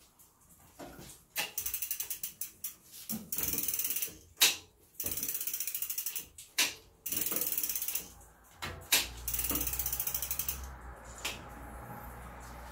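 Bicycle rear-hub freewheel ratchet clicking as the rear wheel is spun by turning the pedal by hand. It comes in several spells of fast buzzing ticks, and the ticking slows as the wheel coasts near the end.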